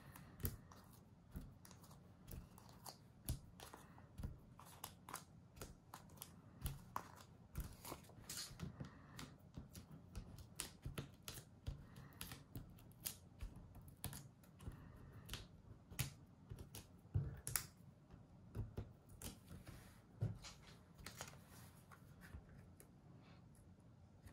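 Foam adhesive pop dots being peeled off their backing sheet and pressed onto cardstock: faint, irregular small clicks and paper rustles.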